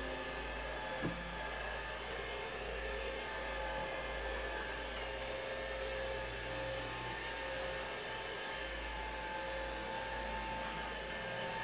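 Stick vacuum cleaner running steadily, a motor whine over even suction noise, with one short knock about a second in.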